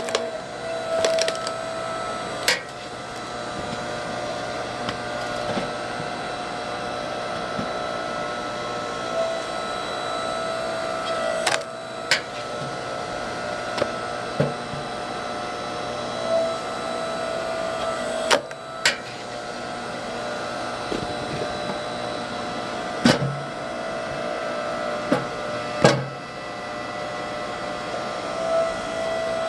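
Hydraulic log splitter's motor humming steadily as logs are pushed against the wedge. The wood splits with about six sharp cracks spread across the span, two of them close together.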